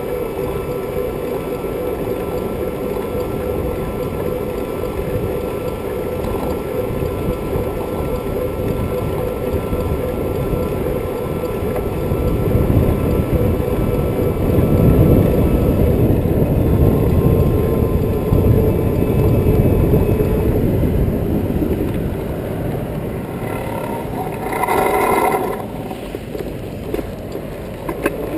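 Electric bike riding along a road with cars passing: a steady motor whine under wind and road rumble on the camera. The rumble grows louder through the middle, and a short pitched tone sounds near the end.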